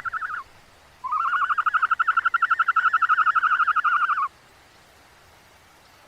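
An animal's rapid pulsed trill, given twice: a short call that breaks off about half a second in, then a longer steady trill of about three seconds.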